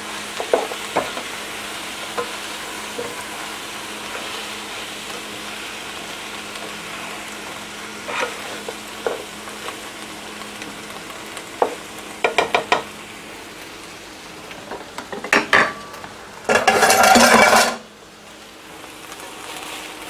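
Oxtail and tripe sizzling in a square copper-coated pan while being stirred with a black spatula, which knocks against the pan in scattered clicks and clatters. Near the end a loud rushing noise lasts about a second.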